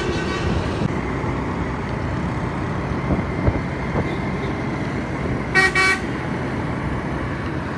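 Steady engine and wind noise of a small motorcycle riding through city traffic. Late on, a vehicle horn toots twice in quick succession.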